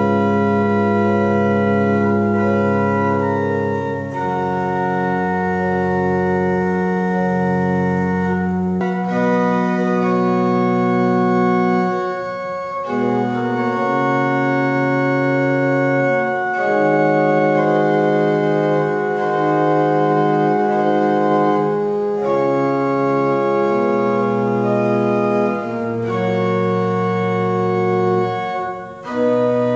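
Church pipe organ, with fanned horizontal trumpet pipes on its case, being played live: full sustained chords that change every second or two over a deep bass note held for the first nine seconds. The music breaks off briefly near the middle and again just before the end.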